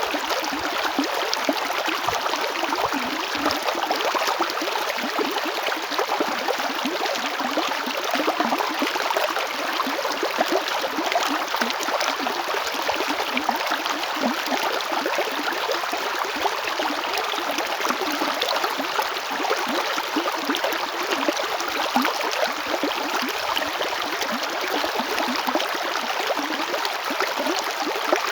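A river flowing over stones: a steady, dense rush and babble of water with fine gurgling detail.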